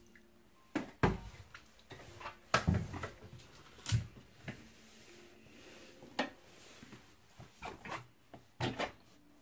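Irregular knocks and thumps, about half a dozen, of a wheeled shopping cart being handled and bumped through a doorway.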